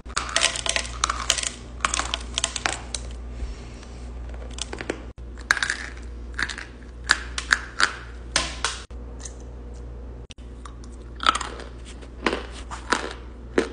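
Edible chalk being bitten and chewed: irregular crisp crunches and crackles of the brittle block breaking between the teeth, a few a second with short pauses, over a steady low hum.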